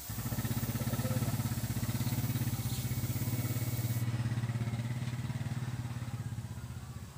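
Small air compressor running with a low, fast-pulsing hum. It switches on abruptly and cuts out near the end. An airbrush hisses over the first half, stopping about four seconds in.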